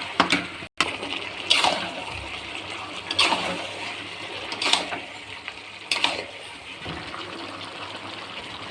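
Running water with a splash about every second and a half.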